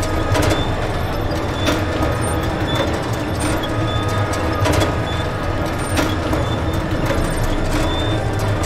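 A pushcart rolling along with a steady rumble, and a clank or knock every second or so.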